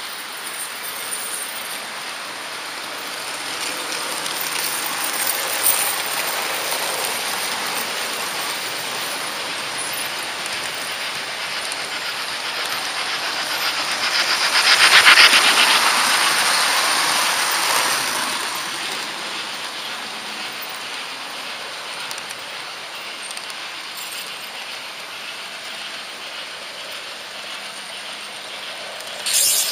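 HO-gauge model train running along the track, a steady hiss of wheels on rail. It swells about halfway through with a fast, fine clatter as an oncoming model steam locomotive passes on the next track, then fades. A brief sharp clack comes near the end.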